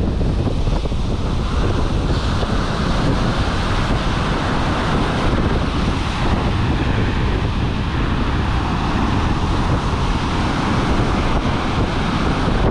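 Heavy surf breaking and washing up a sandy beach, with strong wind buffeting the microphone in a steady, loud rumble.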